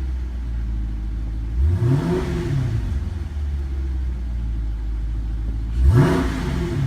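2016 Dodge Challenger Scat Pack's 6.4-litre 392 HEMI V8 on its stock exhaust, idling and blipped twice, about two seconds in and near the end. Each rev rises and drops back to idle within about a second.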